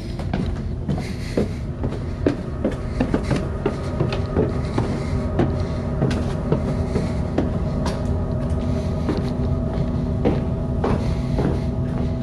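A low steady drone with several held tones, over which come irregular knocks and clicks, two or three a second, like footfalls and creaks on old wooden floors and stairs.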